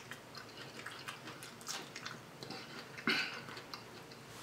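Faint wet chewing of a ripe strawberry: soft scattered mouth clicks and squelches, with one louder click about three seconds in.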